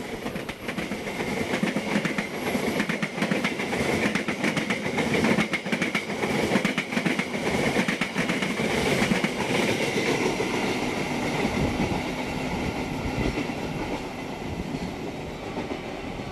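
Passenger coaches of KA Lodaya running through the station without stopping, on the track right alongside: wheels clattering in quick clicks over the rail joints under a steady high ringing. The sound fades over the last few seconds as the end of the train goes by.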